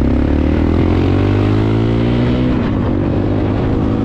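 Honda CRF250L single-cylinder motorcycle engine pulling away under throttle, its note rising over the first couple of seconds and then holding steady.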